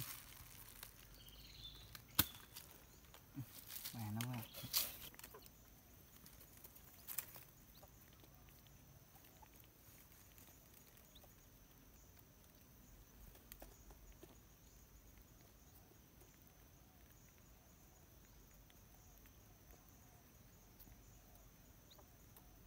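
Quiet outdoor background with a faint, steady high tone throughout, and a few sharp clicks and a short low sound in the first seven seconds.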